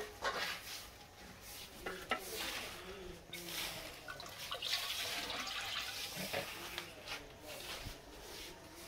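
Paye broth being ladled and poured: a metal ladle knocking a few times against the pot and mug, then the red, oily broth splashing from a plastic mug into a clay pot, loudest around five seconds in.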